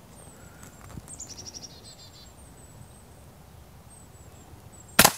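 A single suppressed shot near the end, short and sharp, from a Keystone Crickett single-shot .22 LR youth rifle fitted with a Huntertown Arms Guardian suppressor and firing subsonic ammunition. Before it there is quiet outdoor air with a few bird chirps.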